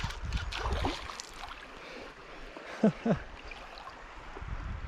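Creek water running and gurgling, with two short rising sounds close together about three seconds in.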